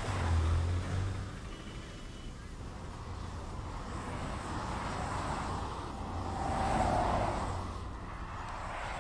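Road traffic: a low engine rumble in the first second or so, then the hiss of a vehicle passing, swelling to its loudest about seven seconds in and fading.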